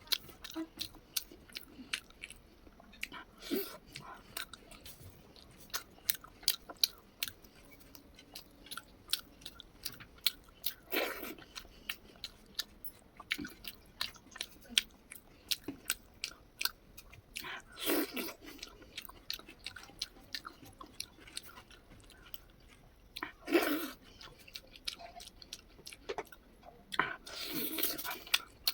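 Close-up chewing of spicy chicken liver and rice, full of quick wet mouth clicks and smacks. Four louder, longer mouth sounds stand out, about a third of the way in, past the middle, and twice near the end.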